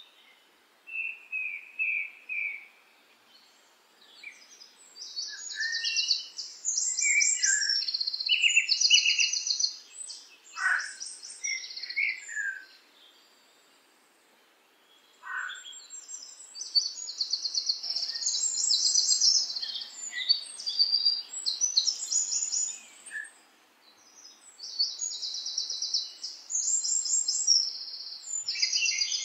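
Songbirds singing: several overlapping high, rapid trills and chirps with a few lower notes mixed in, pausing briefly about three seconds in and again about thirteen seconds in.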